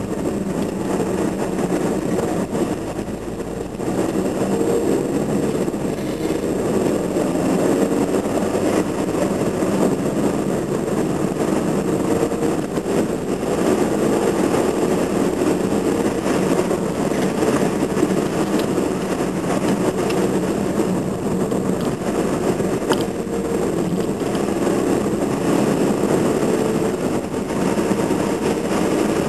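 A car's engine and tyre noise heard from inside the cabin while driving, a steady drone that gets a little louder about four seconds in.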